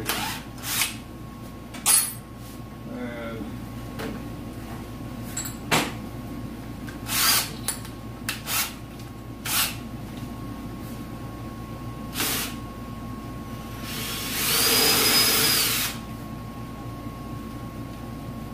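Cordless drill being handled and run: a series of clicks and several short spurts of the motor while a 1/2-inch bit is fitted in the chuck, then the drill runs steadily for about two seconds near the end with a high whine.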